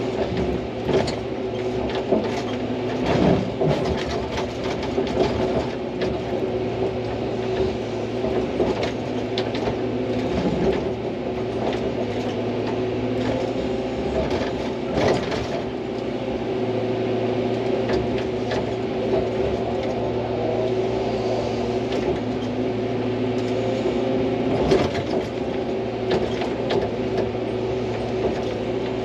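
Hydraulic excavator's diesel engine running steadily, with a few short knocks from the machine working the ground.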